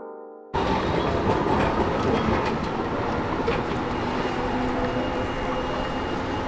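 Piano music cuts off about half a second in and gives way abruptly to a loud, steady outdoor rumble.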